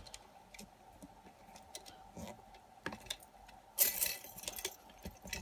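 Scattered small metal clicks and taps of a padlock being handled in a vise, then a brief jangle of keys a little under four seconds in.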